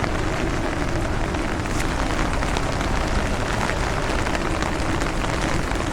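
Steady rain falling at the tail end of a typhoon, an even hiss.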